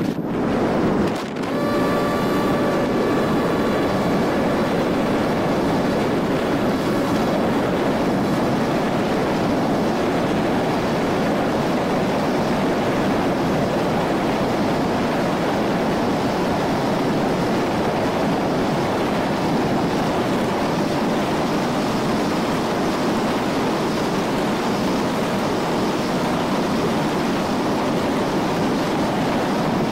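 Battery-powered model UAV in flight: a steady rush of airflow and propeller noise. A faint thin whine from the electric motor shows over the first several seconds.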